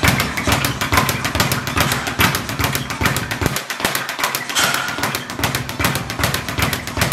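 Leather speed bag punched fast and steadily, rattling off its rebound platform in a rapid, even run of strikes several times a second.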